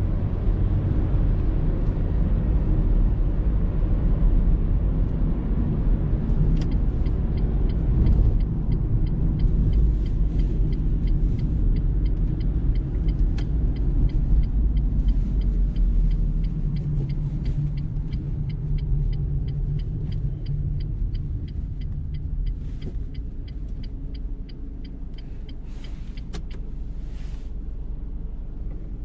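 Car engine running with a steady low rumble, easing off gradually in the second half. From about seven seconds in, a regular light ticking repeats about twice a second.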